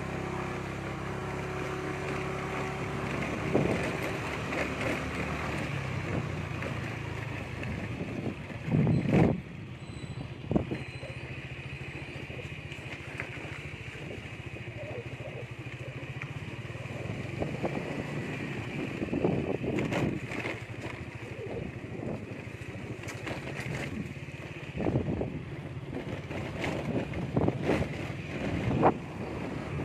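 A small vehicle engine running steadily, with wind buffeting the microphone in several loud gusts.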